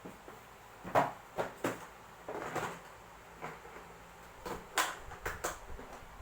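Irregular clicks and knocks of small hard objects being handled and set down, with a short scrape about two and a half seconds in; the loudest knock comes about a second in.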